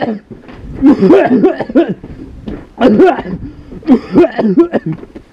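Men coughing in harsh fits, with some voice mixed in, coming in about four loud bursts.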